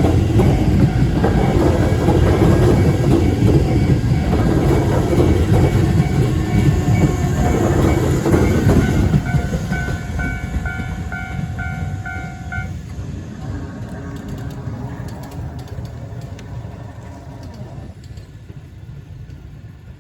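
Keisei 3500-series electric train running over a level crossing, loud for about the first nine seconds and then fading steadily as it moves away. A ringing crossing warning signal sounds over it, pulsing, and cuts off about thirteen seconds in as the crossing clears.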